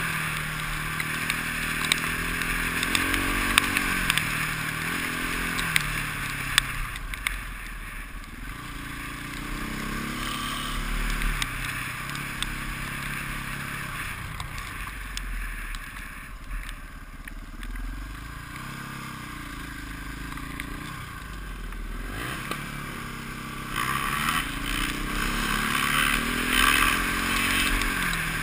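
KTM enduro motorcycle engine under way, its pitch rising as it accelerates and dropping back again several times as the rider shifts and rolls off the throttle, heard from a helmet-mounted camera.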